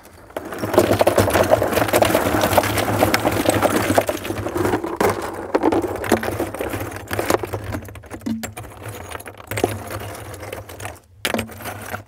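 Big chunks of lava rock poured from a plastic bucket into a plastic filter tub: a dense clattering rattle of rock on rock for about the first five seconds, then scattered separate knocks as the rocks are shifted into place by hand. A steady low hum runs underneath.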